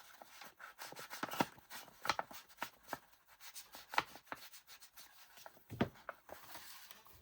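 Soft, irregular rubbing and dabbing of an ink applicator on paper and on an ink pad, with scattered light taps, as Vintage Photo distress ink is worked onto paper edges to darken them.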